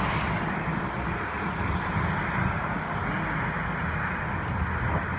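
Steady engine and road noise of a moving vehicle, with no distinct events.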